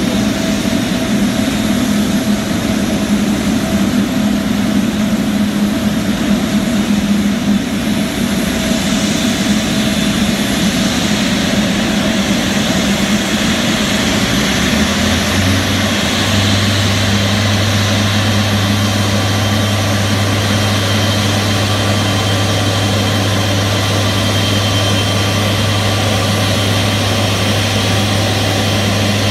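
Jet engines of a twin-engine widebody airliner running at taxi power, a steady rushing whine. About halfway through, a strong steady low hum sets in and holds.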